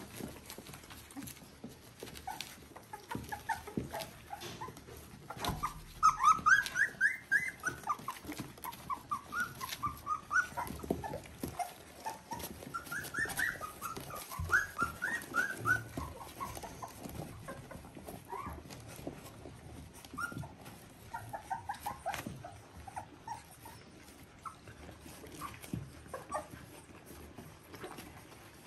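Three-week-old Border Collie puppies squeaking and whining in quick runs of short high calls while they jostle to nurse from their mother. The calls come in several bouts, loudest a few seconds in and again in the middle.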